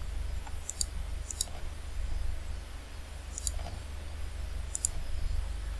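Computer mouse buttons clicking, about four separate clicks spread over a few seconds, over a steady low electrical hum.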